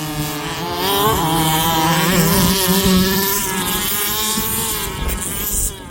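Two large-scale petrol RC cars' small two-stroke engines (30.5cc and 38cc) running at high revs and accelerating away, their buzzing pitch wavering and climbing about a second in. The sound drops quieter near the end.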